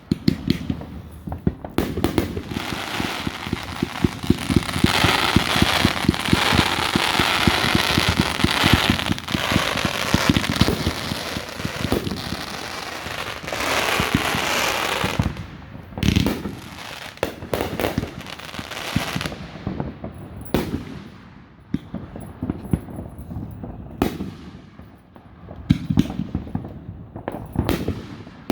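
Fireworks display: a fast volley of many bangs with a crackling hiss over it for the first ten seconds or so, then single booms every few seconds.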